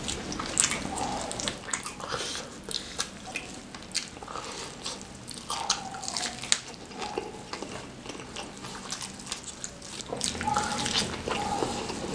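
Close-miked eating of sambal-drenched fried chicken: meat torn apart by gloved hands and bitten, with wet, sticky chewing and many sharp clicks and crackles.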